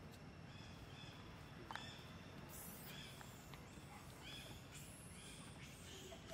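Faint short, high chirps of birds repeating irregularly over a low steady background hum, with a single sharp click about two seconds in.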